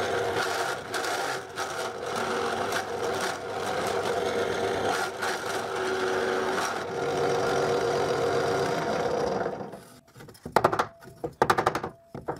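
Drill press running with a wood bit cutting sideways through oak, the workpiece slid back and forth under the bit, with an uneven chattering as it bites; the maker thinks this technique may strain the drill press. The cutting stops about ten seconds in, followed by a few short rasping bursts.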